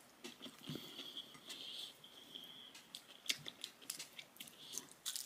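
Faint sounds of eating by hand: closed-mouth chewing and scattered small clicks of fingers picking at fried rice and dried fish on a plate.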